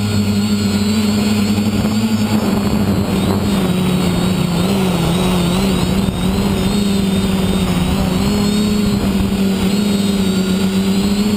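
A quadcopter's electric motors and propellers whining steadily, as heard from the camera mounted on the craft. The pitch wavers slightly as the throttle changes.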